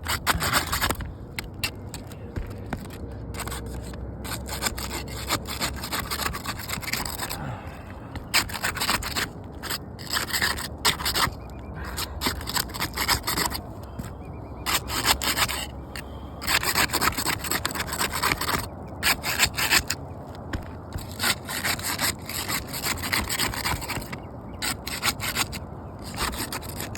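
A tool being worked back and forth under asphalt shingle tabs, scraping and rasping in irregular strokes with short pauses, as the shingles' sealant strips are broken loose.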